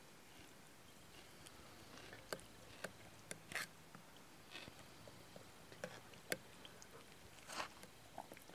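Near silence, with a few faint scattered clicks and ticks and a couple of brief soft rustles.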